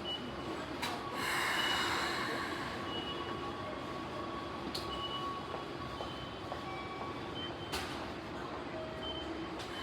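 Keikyu train running in the station, a steady rumble with a brief hiss about a second in and a few sharp clicks.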